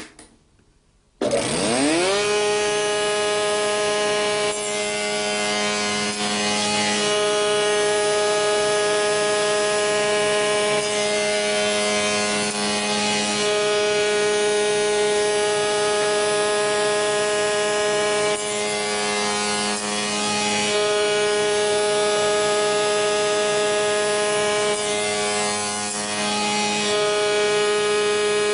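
Spindle moulder (wood shaper) switched on about a second in, its rising whine settling as the cutter block comes up to speed. It then runs steadily while the cutter forms the scribe on the end grain of cabinet door rails, the sound changing in several stretches as timber is fed past the cutter.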